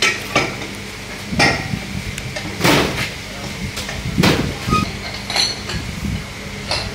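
Irregular metallic clanks and knocks, some ringing briefly, from hand tools and wheel hardware being handled on a sprint car's rear wheel and hub, over a steady low hum.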